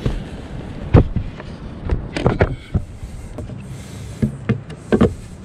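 Wooden boards knocking and clattering as they are handled and set down: a series of sharp knocks at uneven intervals, the loudest about a second in, over a steady low background noise.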